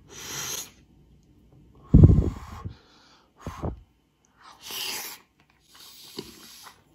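A man blowing short puffs of breath over hot dumplings to cool them. One puff about two seconds in is louder, with a low rumble.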